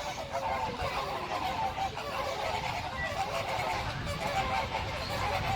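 A flock of pink flamingos honking together in a continuous racket of overlapping short calls. The speaker hears it as the birds begging to be fed.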